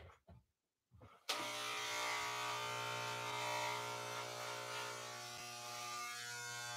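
Electric hair clippers switched on about a second in, then buzzing steadily as they are run over the head. A few light handling knocks come just before they start.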